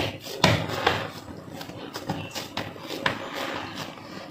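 Hands patting and pressing a soft mashed-potato dough flat on a cutting board: repeated soft, uneven slaps about two a second, the loudest about half a second in.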